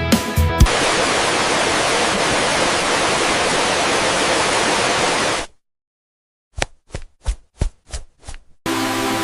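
A steady, even hiss of noise for about five seconds that cuts off abruptly, then after a second of silence six short sharp knocks, about three a second, before music starts again.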